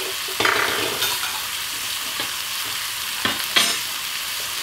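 Streaky bacon and a beef burger patty frying in hot pans, a steady fat sizzle with a few brief louder bursts about half a second in and again past three seconds.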